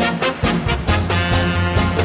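Background music with a brisk, steady beat.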